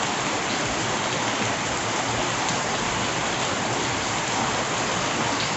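Steady rain falling, an even hiss without a break, with a few faint drop ticks.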